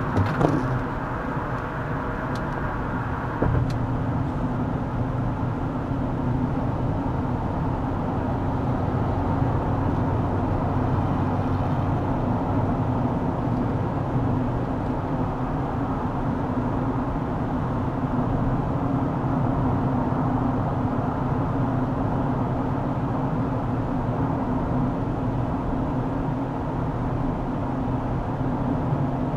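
Steady road and engine drone heard inside a car driving on a highway, picked up by the dashcam's microphone, with a couple of light clicks a few seconds in.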